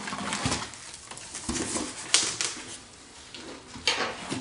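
A box cutter slitting the packing tape along a cardboard box's seam, then the cardboard flaps being pulled open: scraping and rustling with a few sharp snaps and knocks, the loudest about two seconds in and near the end.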